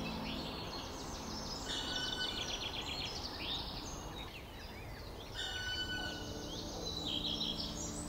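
Small songbirds singing, two song phrases of rapid repeated notes about two and five and a half seconds in, over a steady low hum that drops away at the start and comes back near the end.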